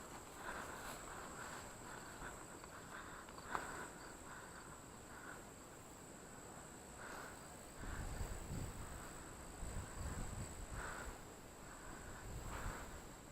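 Faint outdoor ambience: a steady high-pitched insect drone, with soft rustles and one sharp click a few seconds in. Low rumbling on the microphone starts about two-thirds of the way through.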